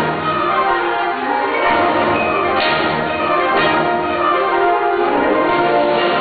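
High school symphonic band playing sustained, layered chords, with two struck percussion accents about two and a half and three and a half seconds in.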